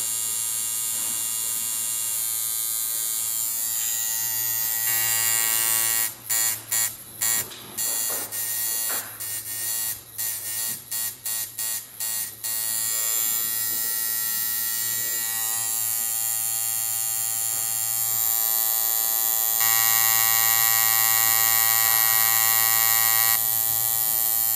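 Hand-built two-coil tattoo machine buzzing steadily, its armature bar hammering against the contact screw. Between about six and twelve seconds in it stops and starts again and again in quick succession, then runs on steadily, louder for a few seconds near the end.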